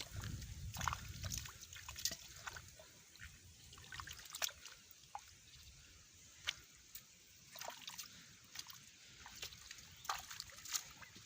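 Water splashing and dripping in small, irregular splashes.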